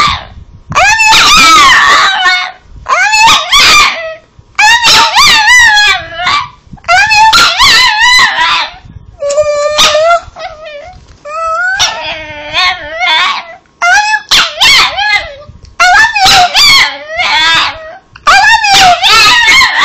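Chihuahua 'talking': a string of about ten short howl-like vocalizations, each about a second long, its pitch wavering up and down, with brief pauses between them.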